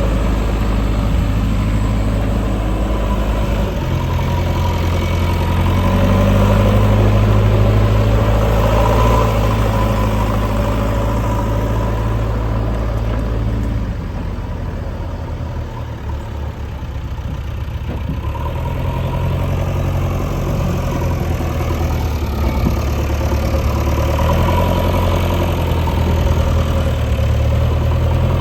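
JCB 3DX backhoe loader's diesel engine running, its note shifting as the load changes, easing off in the middle and picking up again near the end.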